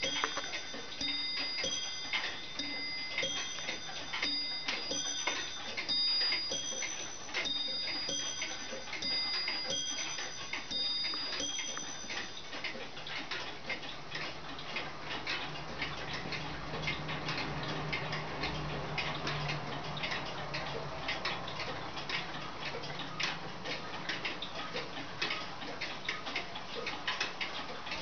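Several mechanical clocks ticking together, with a string of short, high-pitched bell-like chime notes ringing in changing pitches through roughly the first twelve seconds, then ticking alone.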